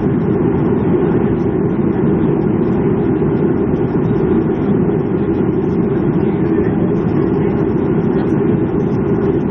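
Steady low rumble of cabin noise inside a Boeing 737-300 on the ground after landing.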